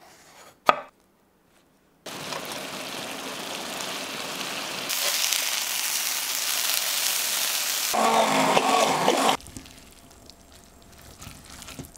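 A single sharp knife cut through aubergine onto a wooden chopping board. Then aubergine wedges sizzle in hot oil in a frying pan, a steady hiss that grows louder a few seconds in and cuts off suddenly. Faint light taps follow as a spatula stirs pesto into cooked brown rice.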